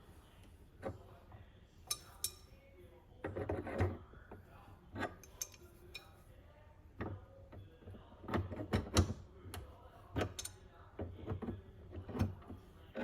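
A metal wrench clicking and clinking against the steam-wand fitting of a Breville espresso machine as it is turned tight, in irregular taps and clatters with a few louder clusters.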